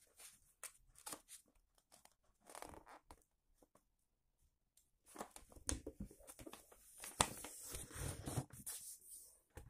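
A sheet of A4 printer paper rustling and crinkling as it is handled and folded into a triangle, with a couple of sharper clicks in the second half. It goes quiet for about a second and a half midway.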